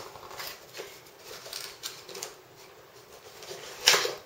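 Packaging and small parts being handled: irregular rustling and light clicks, with one louder, brief rustle near the end.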